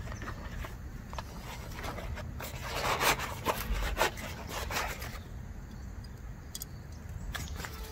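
Nylon drawstring stuff sack rustling and rubbing as it is worked open and a folding stainless-steel camp stove is slid out of it, with scattered small clicks. The rustling is loudest about three seconds in.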